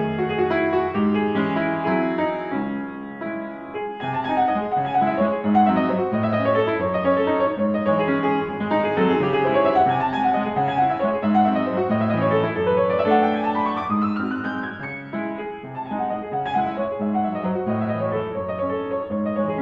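Background piano music, with a rising run of notes about two-thirds of the way through.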